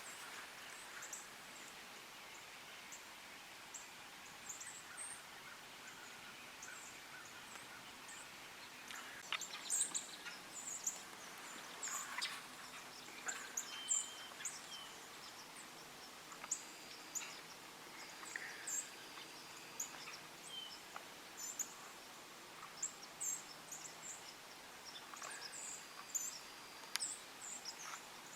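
Faint woodland birds calling: scattered short high chirps throughout, with a couple of thin, held whistled notes in the second half and a few light clicks.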